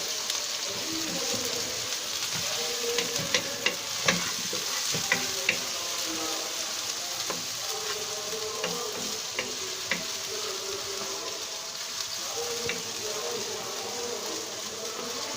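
Chopped onion, spice pastes and whole spices sizzling steadily in hot oil in a pan while they are stirred. A cooking utensil clicks and scrapes against the pan several times, mostly a few seconds in and again a little later.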